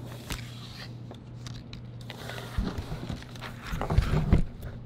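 Hands sliding and gathering phones, paper inserts and plastic sticker sheets off a tabletop: rustling and scraping with a few knocks, loudest in the last second or so.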